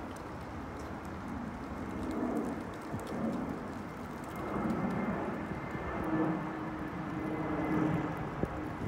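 Twin-engine jet airliner passing low overhead: a broad, steady rumble of jet engine noise that grows a little louder toward the end.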